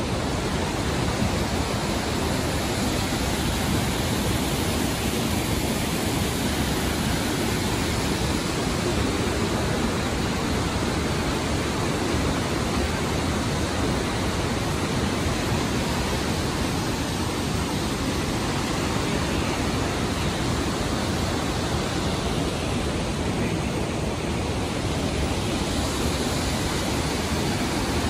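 Steady, unbroken rush of water from Kegon Falls, a tall waterfall.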